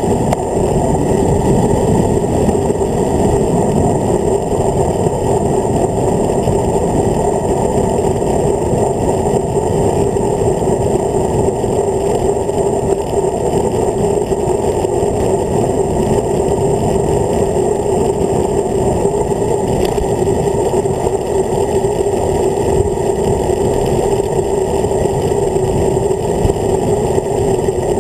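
Steady, muffled wind rush over the bike-mounted camera's microphone as a road bike rolls fast downhill.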